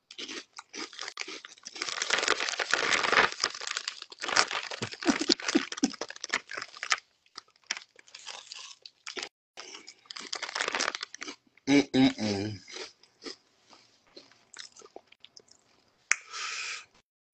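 Close-up crunching and chewing of crunchy chips. The crunching is dense for about the first seven seconds, then comes in sparser bites, with some crinkling of the chip bag.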